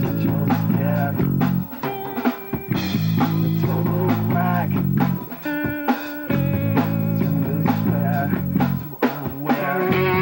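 Amateur rock band playing live: electric guitars over a drum kit. They play a riff that repeats about every three and a half seconds.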